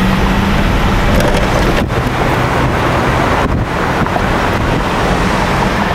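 Wind rushing over the microphone of a moving car, with road noise and a steady low engine hum underneath.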